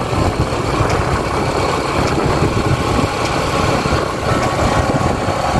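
Yamaha YBR 125 single-cylinder motorcycle running along a road, its steady engine noise mixed with wind rushing over the microphone.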